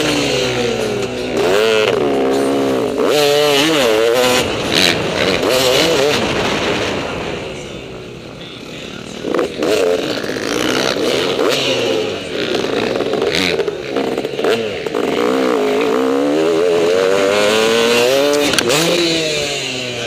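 Motocross bike engine heard close up from the rider, revving up and down again and again; the engine note drops away for a couple of seconds near the middle, then climbs again.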